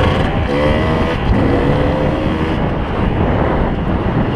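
Two-stroke engine of a 2003 Kawasaki KDX 220R dirt bike running on the trail. Its pitch climbs over the first two or so seconds, then it fades into a steady rush of riding noise.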